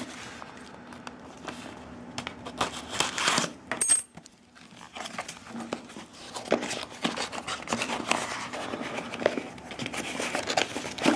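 A postal package being torn open and unwrapped by hand: paper crinkling, tearing and rustling, with small clicks and knocks of handling, and a brief lull about four seconds in.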